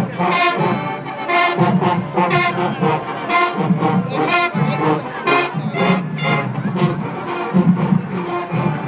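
Marching band playing: a brass melody over a steady drum beat with strong hits about twice a second.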